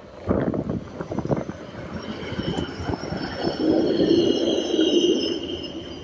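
A Helsinki tram passing close on snowy rails, its wheels giving a high, drawn-out squeal over a low rumble that swells and then eases. Footsteps crunch in snow in the first second or so.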